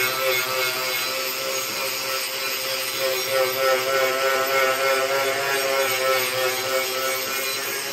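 Ryobi angle grinder fitted with an Arbortech carving wheel running with a steady whine while it cuts indents into the edge of a walnut board.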